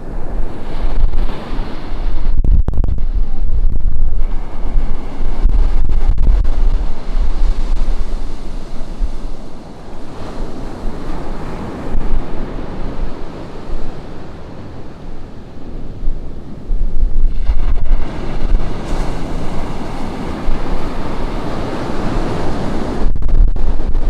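Ocean surf breaking and washing up a beach, the wash swelling and easing in surges, with wind buffeting the microphone in low rumbling gusts.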